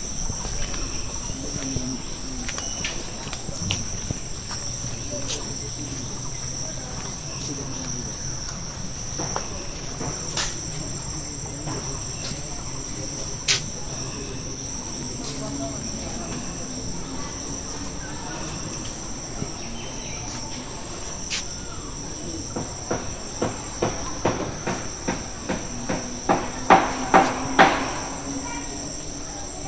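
A steady, high-pitched chorus of trilling insects. A run of short knocks, about two a second, starts past the middle and grows louder toward the end.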